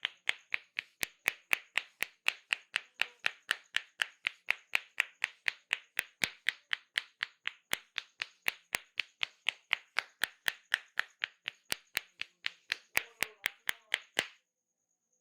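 A barber's hands slapping in the percussive tapping of an Indian head massage, even and rapid at about four strikes a second. The slapping stops abruptly near the end.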